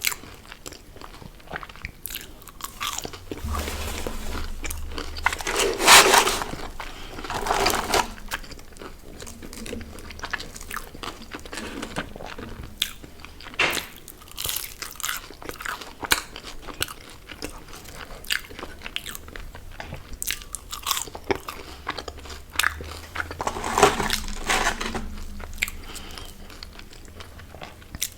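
Close-up eating sounds: bites into crunchy food and steady crunching, chewing, with louder crunches about six seconds in and again near the end.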